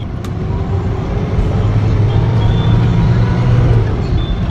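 Engine and road noise heard from inside a moving vehicle's cabin: a steady low rumble that grows louder over the first few seconds. A single sharp click comes just after the start.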